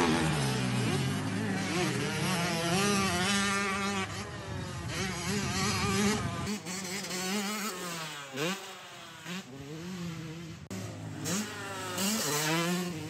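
Motocross bike engines revving, the pitch climbing and dropping again and again as the throttle opens and closes, with a high buzzing tone. The sound changes abruptly about six and a half seconds in, then the revving goes on.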